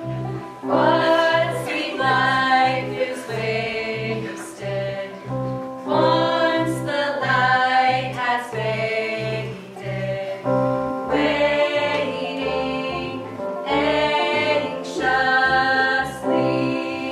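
Women singing a song in harmony in three long phrases, over instrumental accompaniment with a steady pulsing low note.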